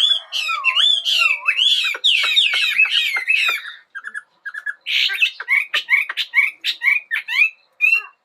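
A Chinese hwamei (laughingthrush) singing a loud, varied song of slurred whistles and fast repeated notes, with a short lull about four seconds in before a run of quick clipped notes.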